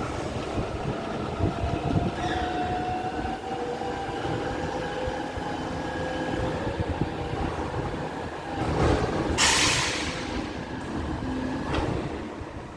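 Garbage truck's machinery working, with metallic squeals and a slowly rising whine over the running engine, and a loud hiss lasting about a second, roughly nine seconds in.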